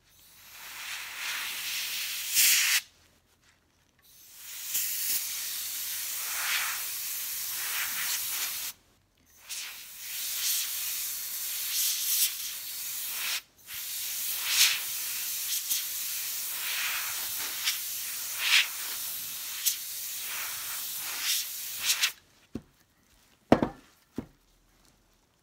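Air blown through a straw across wet alcohol ink, a steady hiss held for several seconds at a time with short pauses for breath between blows. Near the end the hiss stops and a few short sharp clicks follow as the blending-solution bottle is handled.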